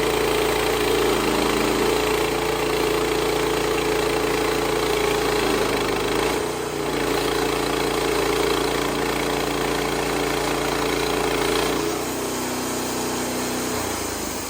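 Wood-Mizer LX55 band sawmill's engine running steadily, its tone dipping briefly about six seconds in and settling slightly lower near twelve seconds.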